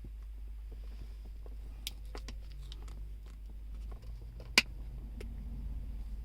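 A knife cutting a piece of hard plastic: scattered small clicks and scrapes, with one sharp crack of the plastic about four and a half seconds in, over a steady low hum.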